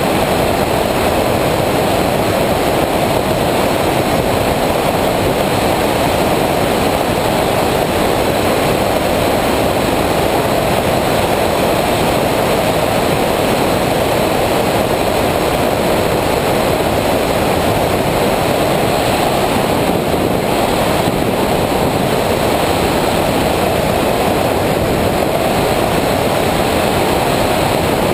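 Steady, unbroken rushing of a foam RC model plane (Easystar II) in flight, heard from its onboard GoPro: airflow over the camera mixed with the plane's electric pusher propeller.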